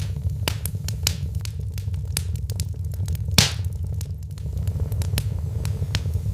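Wood fire in a fireplace crackling: scattered sharp pops and snaps over a steady low rumble, with one louder hissing pop about three and a half seconds in.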